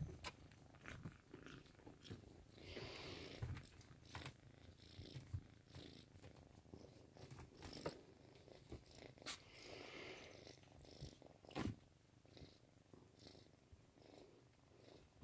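Domestic cat purring faintly, close by, in slow swells. A couple of brief faint knocks are heard in the second half.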